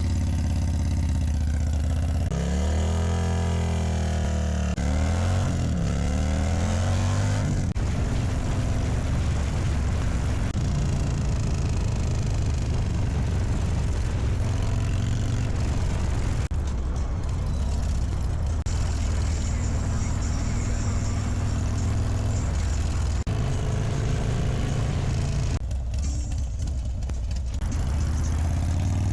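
Motorcycle engine running while riding, with a steady low rumble. A few seconds in, the engine revs up and down several times.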